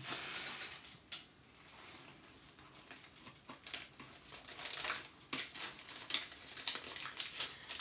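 Faint, scattered small clicks and rustles of handling in a small room, with no speech.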